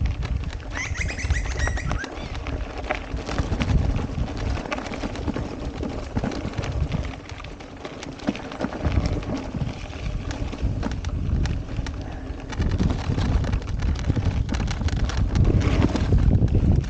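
Mountain bike ridden fast down a dirt singletrack: wind rumble on the microphone, tyre noise and the rattle and clatter of the bike over bumps. A bird calls briefly about a second in.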